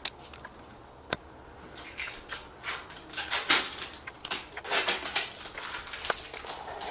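Handling noise from the graphics card being handled: two sharp clicks in the first second or so, then several seconds of quick crinkly rustling and clicking.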